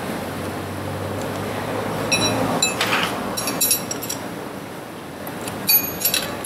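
Short, ringing metallic clinks in a few clusters from about two seconds in, the loudest near the end: a steel chain riveting tool being seated on the master link of a motorcycle drive chain.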